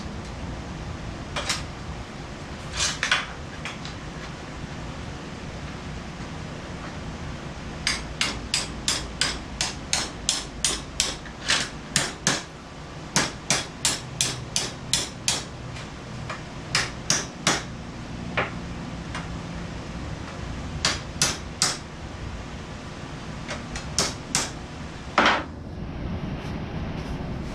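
Hammer striking metal: a few blows, then a run of quick strikes at about two to three a second for several seconds, then scattered blows. A steady low hum runs underneath.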